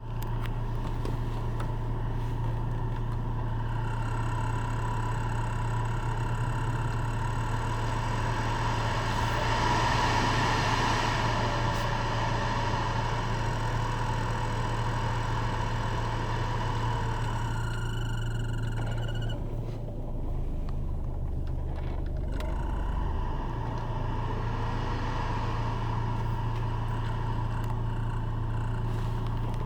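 BMW E46 heater and air-conditioning blower fan running with an abnormal noise: a steady whine over a low hum. The whine cuts out for a few seconds about two thirds of the way through, then returns.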